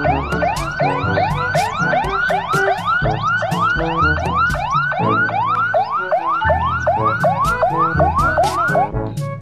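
Toy police car's electronic siren sounding in quick rising sweeps, about three a second, stopping shortly before the end.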